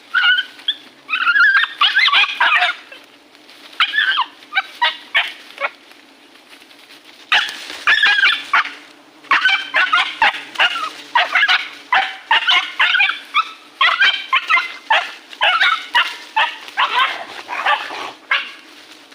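Rapid series of short, high, dog-like yelping and whimpering animal calls, coming in dense bursts, thinning out for a few seconds about a third of the way in, then packed close again.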